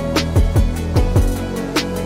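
Background music: an instrumental track with a drum beat, deep kick drums and sharp percussion hits over held chords.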